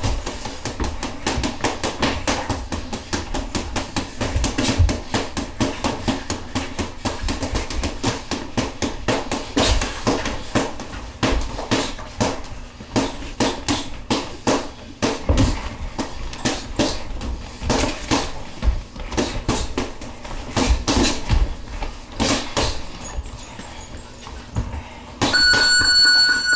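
Boxing gloves striking a heavy bag and landing on gloves and headgear in sparring, irregular thuds and slaps several a second. About a second before the end an electronic gym round timer starts a steady high beep, signalling the end of the round.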